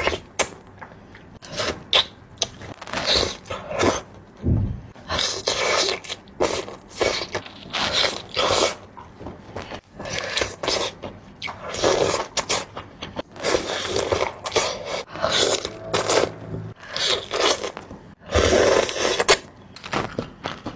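Close-miked eating sounds: irregular wet chewing, smacking and crunching of seafood, in quick uneven bursts.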